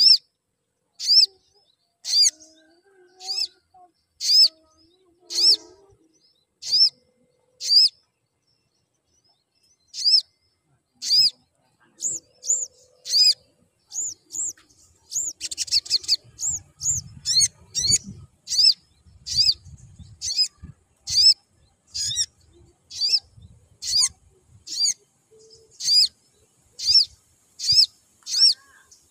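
Male olive-backed sunbird (sogon) giving a long series of sharp, high chirps. They come about one a second, pause for a couple of seconds, then speed up to about two a second.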